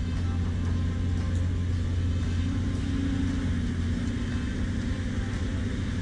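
Caterpillar hydraulic excavator's diesel engine running steadily as the machine digs and lifts a bucket of soil, its note rising slightly around the middle.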